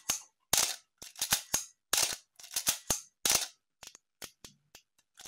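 Canon A-1 35 mm SLR's shutter and mirror firing over and over at slow shutter speeds: a run of sharp mechanical clicks, several in close pairs. The camera is freshly serviced and healthy, with no mirror squeak.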